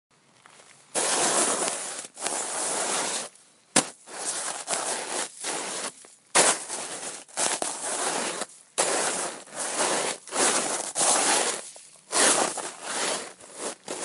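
Snow shovel scooping and scraping through snow: a run of crunchy, scraping strokes about a second long each, starting about a second in, with a couple of sharp knocks of the blade among them.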